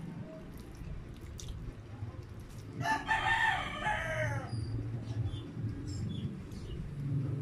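A rooster crowing once, a single call of about a second and a half that drops in pitch at the end, over a low hum and small clicking sounds of eating.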